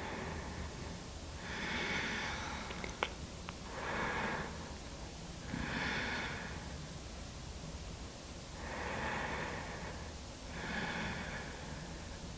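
A woman breathing slowly and audibly, each breath a soft hiss about a second long, about five in all, with a tiny click about three seconds in.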